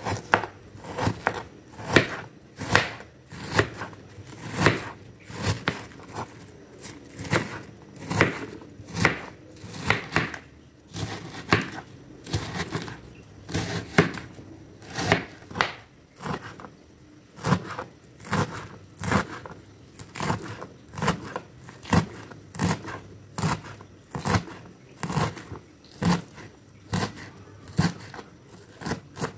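Kitchen knife slicing through a head of cabbage on a cutting board, one stroke after another at slightly more than one a second. Each stroke is a short crisp cut ending in a tap on the board. Near the end the knife is cutting spring onions.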